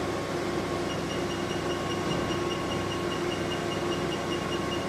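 Diode laser hair-removal machine firing: a fast, even run of short high beeps, about seven a second, starting about a second in, one for each laser pulse, over the steady hum of the machine's cooling system.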